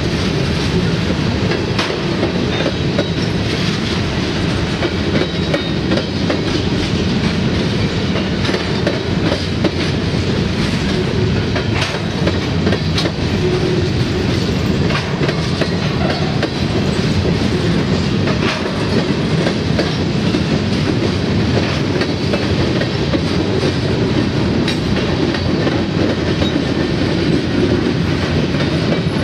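Covered hopper cars of a freight grain train rolling past at speed: a steady rumble of steel wheels on the rails, with scattered clicks as wheels cross rail joints.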